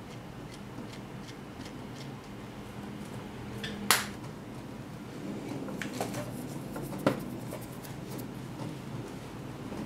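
A few light clicks and taps of kitchen utensils over a low steady hum, the sharpest about four seconds in and another about seven seconds in.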